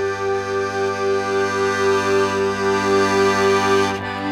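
Schwyzerörgeli (Swiss diatonic button accordion) holding a sustained chord, one of its tones pulsing with a steady, even wavering. A short break comes near the end, after which the chord shifts slightly.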